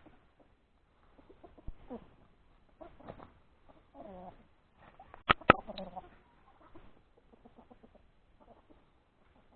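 Domestic chickens clucking intermittently while foraging, with scattered rustling. Two sharp clicks come close together about five seconds in.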